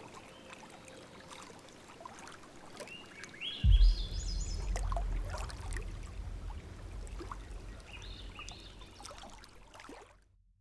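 Bird calls, short high notes climbing in steps, heard in two runs, with a sudden low rumble that starts with a thump a little under four seconds in and keeps going until the sound cuts off near the end.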